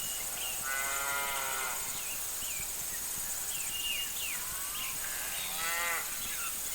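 Steers mooing: two drawn-out calls, one about a second in and another near the end, over faint short chirps and a steady high hiss.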